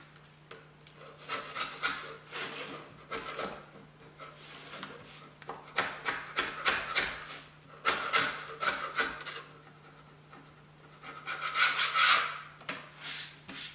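Small hand scraper scraping a plastic 3D-printed part off a textured PEI build plate in a series of short, irregular rasping strokes, then a hand rubbing across the plate surface near the end.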